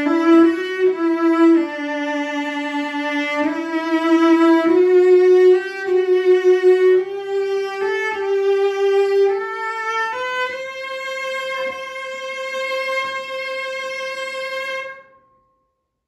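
A c.1910 Jerome Thibouville-Lamy (Mirecourt) factory cello, freshly played in with a Tonerite vibration device after a bridge adjustment, bowed solo. It plays a slow line of sustained notes high on the instrument, climbing step by step, and ends on a long held note that stops about a second before the end.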